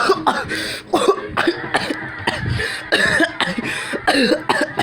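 A man coughing over and over, about a dozen harsh, hacking coughs in quick fits. It is an exaggerated put-on imitation of an old man's cough.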